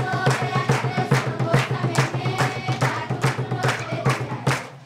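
Background music with a steady percussive beat over a pulsing bass line.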